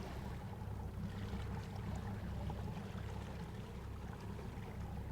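Fishing boat's engine running steadily, a low rumble, with water washing against the hull.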